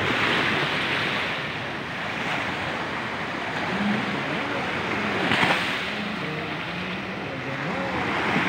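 Small waves breaking and washing up a beach, the surf swelling three times with a sharper crash about halfway through.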